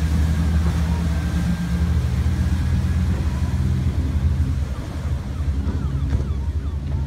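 Speedboat engine running hard as the boat powers away at speed, a steady low drone that drops a little in level about two-thirds of the way through as the boat moves off.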